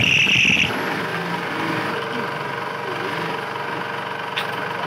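Steady mechanical hum of workshop machinery, with the motor of an industrial sewing machine running. A loud high-pitched whine opens it and cuts off abruptly within the first second.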